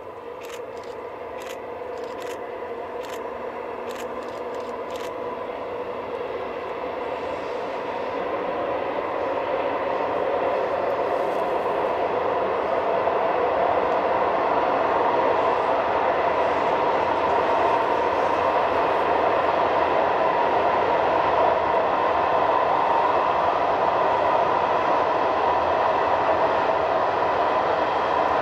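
Freight train behind an electric locomotive passing, its wagons rolling on the rails with steady ringing tones over the rumble. It grows louder over the first fourteen seconds or so as the wagons come closer, then runs on steadily.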